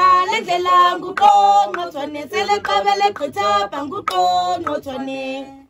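Unaccompanied singing: a voice holding steady notes in short phrases with brief breaks, cut off abruptly at the end.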